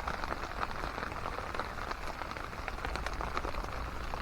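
Steady rain, with many irregular drops ticking on a tarp overhead.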